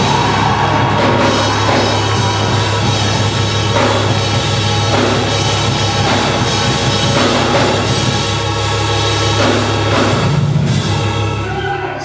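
Live church praise music with a drum kit and a sustained bass line playing loudly and steadily, with no singing.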